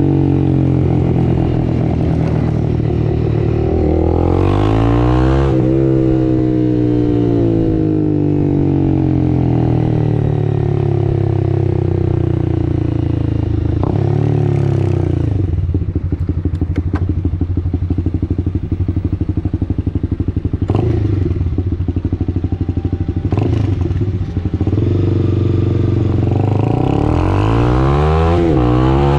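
2022 Honda CB300R's single-cylinder engine through a Two Bros Hurricane slip-on exhaust, heard onboard. The revs fall, rise again about four seconds in, then ease down to a low, evenly pulsing idle around the middle, with two short throttle blips. Near the end the revs climb as the bike pulls away.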